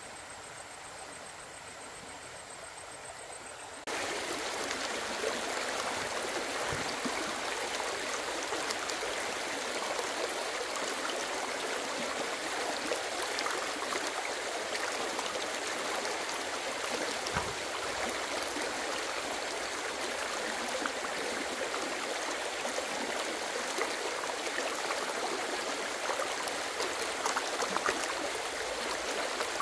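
Running water, steady and even, with small scattered splashes. It cuts in abruptly about four seconds in, after a quieter hiss.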